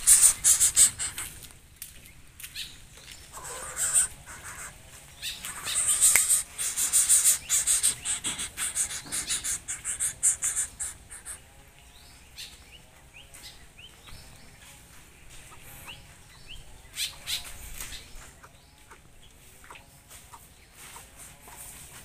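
Wet greater coucal flapping and shaking its feathers on its perch: a crackling rustle in loud bursts over the first ten seconds or so. Faint chirps of small birds follow in the quieter second half.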